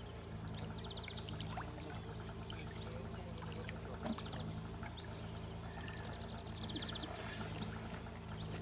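Steady trickling, pouring water over a low steady hum, with small scattered clicks. A short, rapidly pulsed chirp sounds three times, a few seconds apart.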